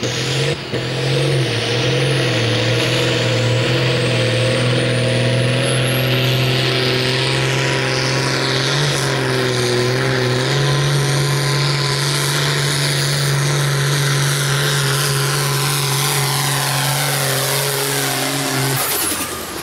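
Ford farm tractor's diesel engine running flat out under load while pulling a weight-transfer sled, with black smoke from the stack. A high whistle climbs in pitch over the first several seconds, the engine note steps up once about halfway, and the engine sound stops shortly before the end.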